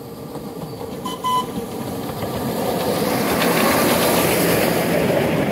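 Ride-on miniature railway train approaching and passing close by, its wheels rumbling and clattering on the rails, growing steadily louder. A short high beep sounds about a second in.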